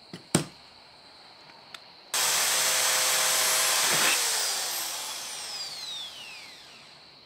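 A couple of sharp knocks, then a corded Makita electric drill starts abruptly about two seconds in and runs at full speed, drilling holes in sheet metal. About four seconds in its speed drops, with a falling whine as the motor slows over the next few seconds.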